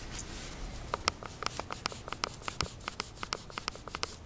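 A camera lens being wiped clean close to the microphone: a rapid, irregular run of small scratchy clicks that starts about a second in.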